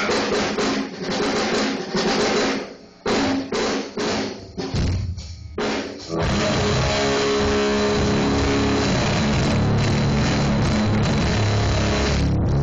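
Rock band at a sound check. For the first five seconds or so the drums play in short, stop-start bursts with gaps; about six seconds in the whole band comes in and plays on steadily and loudly.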